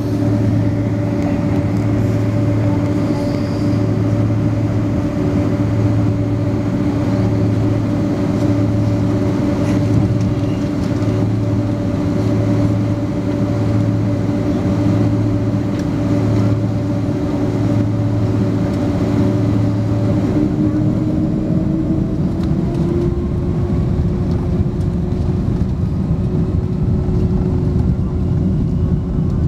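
Boeing 767-300 jet engines heard from inside the cabin, running steadily with a low throb pulsing about once a second. About two-thirds of the way through, the throb stops and the engine tone rises as the engines spool up.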